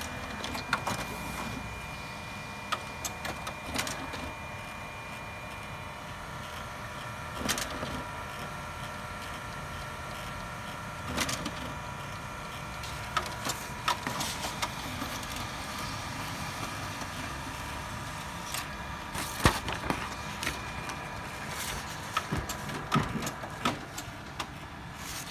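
HP Color LaserJet Pro MFP M277fw laser printer running a print job: a steady mechanical whir from its motors and gear train with several faint steady whining tones, and scattered clicks and knocks from the paper path, one sharper than the rest about three quarters of the way through.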